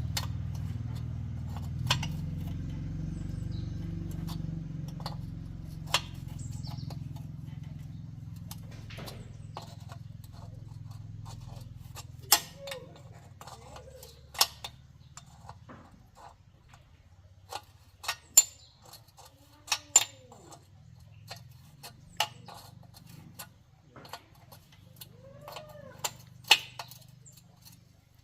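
Scattered sharp clicks and knocks over a low hum that fades away during the first half, with a few faint clucking calls in the background.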